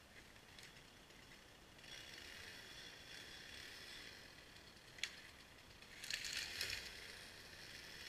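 Stihl chainsaw running faintly, with a single sharp click about five seconds in and a louder rasping burst of under a second near the end as the chain bites into a small tree.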